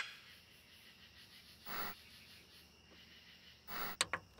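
Mostly quiet, with two brief soft puffs of noise, then a few sharp glitch clicks about four seconds in: a signal-loss sound effect.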